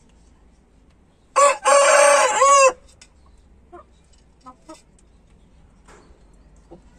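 A rooster crows once: a single loud call of about a second and a half, starting about a second in, its pitch bending down at the end. A few faint short clucks follow.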